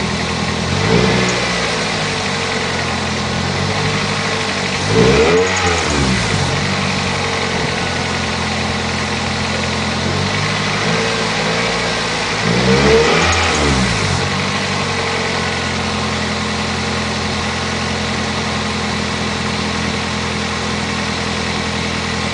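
Toyota Celica engine idling steadily, revved briefly about three times, the pitch rising and falling back to idle each time.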